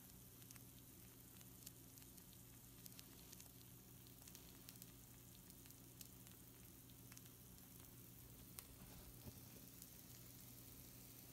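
Faint sizzling of pizza rolls on a baking sheet, with scattered sharp crackles at irregular moments, over a low steady hum.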